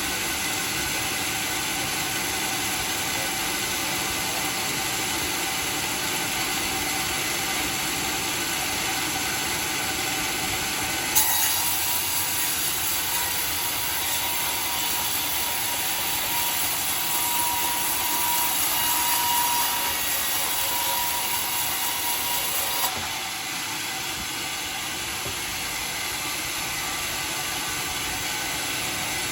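Homemade sawmill running steadily. About eleven seconds in, a brighter, hissier sound with a faint whine comes in: the blade cutting through dry teak. It stops abruptly about twelve seconds later, leaving the machine running.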